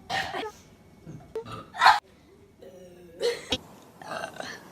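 A girl burping: a string of about five short burps, the loudest about two seconds in.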